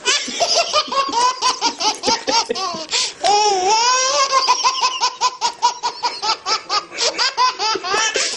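Baby laughing hard: long runs of quick, high belly-laugh bursts, several a second, with a drawn-out squeal near the middle.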